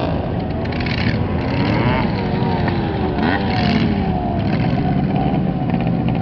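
Several motorcycles, a sidecar rig among them, revving and riding off one after another on loose dirt. Their engine notes rise as they pull away and fall as they pass, over a steady low engine rumble.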